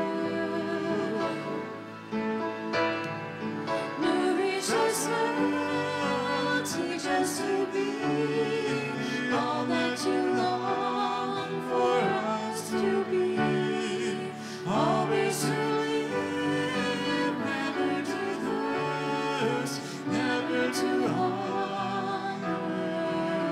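Church hymn during Communion: a singer with a wavering vibrato, accompanied by piano and other instruments.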